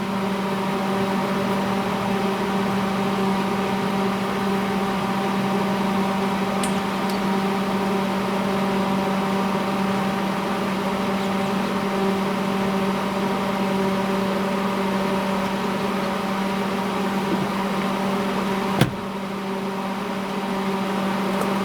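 Steady electrical hum of a welding machine, a pitched drone with overtones over a hiss. A sharp click comes about nineteen seconds in, after which the level dips briefly.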